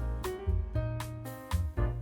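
Background music with keyboard notes over a steady bass beat.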